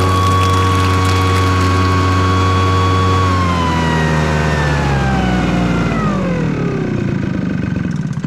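Maruyama MDJ60G-26 backpack power duster's small engine and blower fan running steadily at high speed, then, about three and a half seconds in, winding down with a steadily falling pitch until it stops near the end. It is the machine's test run after its carburettor was cleaned.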